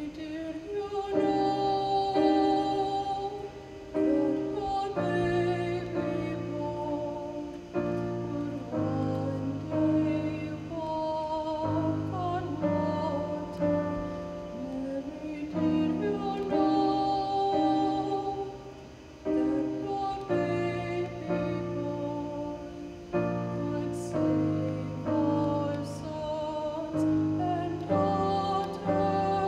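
Choir singing a slow piece in held chords that change every second or so, the voices wavering with vibrato.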